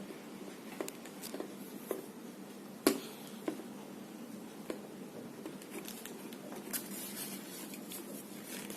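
Irregular light clicks and taps of a plastic lid being twisted and handled, with one sharper click about three seconds in, over a faint steady hum.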